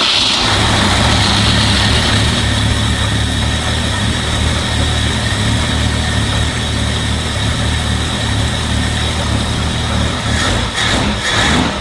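Ford inline-six engine of a 1965 Mustang having just caught and now idling steadily on a freshly installed carburetor, its idle mixture screw set two turns out from closed before tuning. The note wavers slightly near the end.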